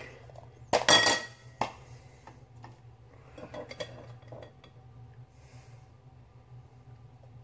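Kitchenware clattering: one loud ringing clink about a second in, then several lighter knocks and clinks around the middle, over a steady low hum.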